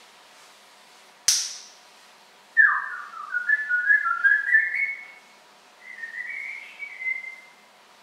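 African grey parrot whistling: a run of short whistled notes that climb in pitch, then a shorter whistled phrase after a brief pause. A single sharp click comes about a second before the whistling starts.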